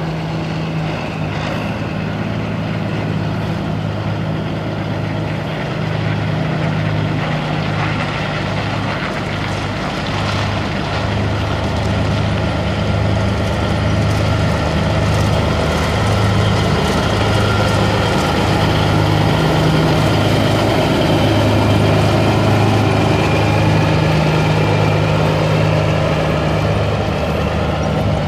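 Caterpillar six-cylinder diesel engine of a 1988 Peterbilt 379 semi truck running steadily, growing slightly louder over the stretch.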